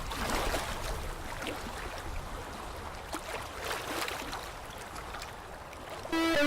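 Water sound: a steady wash with a few small splashes, then guitar music comes back in near the end.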